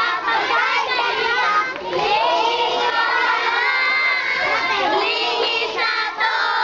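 A group of children shouting and singing together: many high voices overlapping, loud and without pause.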